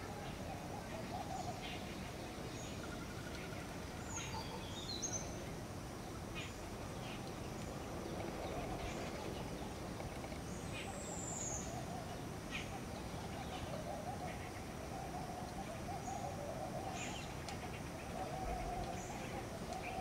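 Birds calling outdoors: a low, wavering call carries on throughout, with scattered short high chirps and a couple of high whistled notes gliding down over it.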